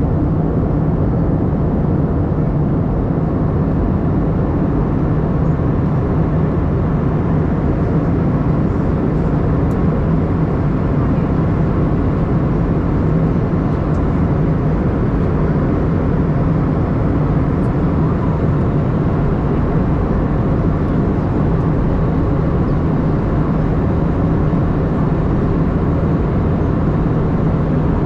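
Jet airliner cabin noise: engines and rushing air as a steady, even noise with a low hum, unchanging throughout.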